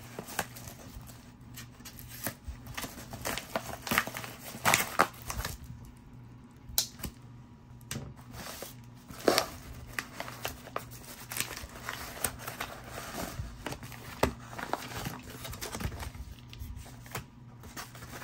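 A yellow padded mailer and plastic coin-set sleeves crinkling and rustling as they are handled and pulled out, with irregular sharp crackles, a few of them louder.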